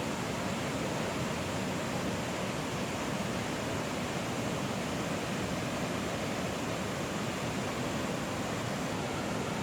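Steady rush of falling water from a waterfall, an even hiss that holds at one level throughout.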